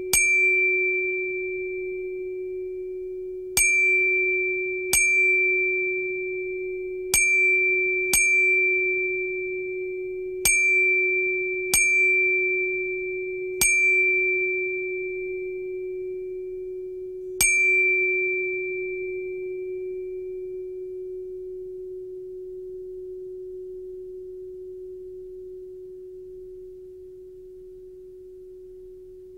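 Sparse soundtrack of struck, bell-like ringing tones: nine strikes at irregular intervals, each ringing out and dying away, over a steady lower hum-like tone. After the last strike, about two-thirds of the way in, only the low tone remains, slowly fading.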